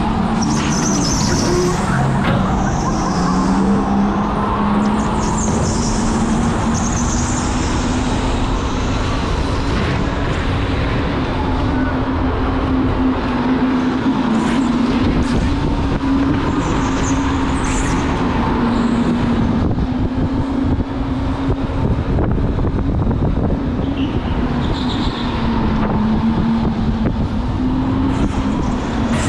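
Electric go-kart running on the track: a steady motor whine that rises and falls slightly with speed over a constant rumble, with short high squeals now and then.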